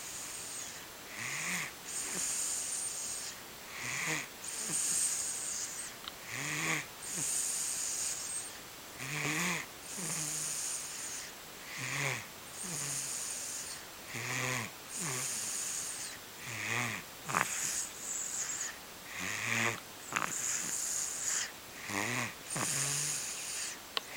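Snoring in a steady rhythm, about one breath every two and a half seconds: each breath is a short, low snore followed by a longer hissing breath.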